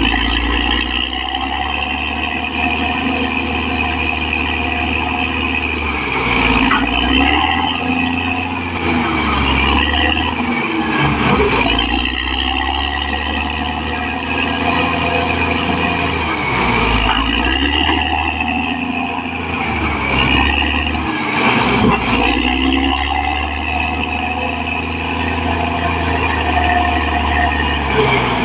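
Caterpillar D6R XL bulldozer's diesel engine working steadily, its note dipping and rising again several times as it takes and sheds load.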